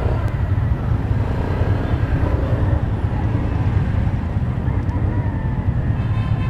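Motorcycles and scooters running at low speed in a slow line of traffic, a steady low rumble.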